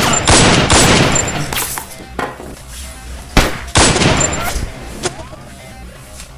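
Film gunshot sound effects: a rapid volley of several loud shots in the first second, then a sharp single shot and another burst of fire about three and a half seconds in, over background music.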